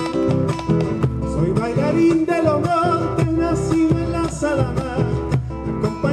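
Argentine folk gato played live: acoustic guitar strumming chords, with a male voice singing in Spanish from about a second and a half in.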